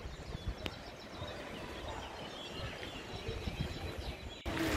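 Outdoor ambience under a sea cliff: a steady low haze of wind or surf with a few faint high bird chirps. About four and a half seconds in it cuts abruptly to a louder outdoor ambience.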